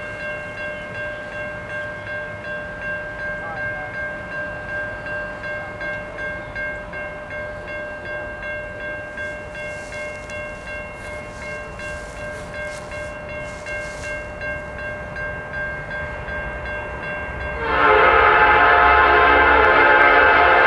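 A railroad grade-crossing bell ringing steadily at about two strikes a second. About three seconds before the end, an approaching Norfolk Southern freight locomotive's air horn starts blowing, much louder, and drowns it out.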